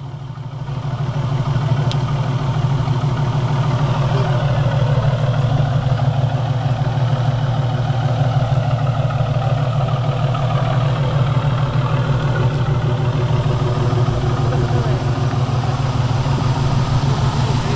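1981 VAM Gremlin X's 258 (4.2 L) inline six idling steadily, heard through headers and true dual 2-inch straight pipes with Magnaflow catalytic converters.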